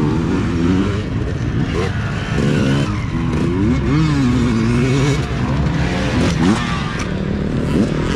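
Dirt bike engines revving up and down as the bikes race past and pull away. The pitch rises and falls again and again with throttle and gear changes, and more than one engine is heard at once.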